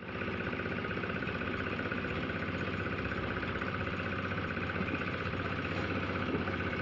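An engine running steadily at a constant speed, with an even, rapid pulsing.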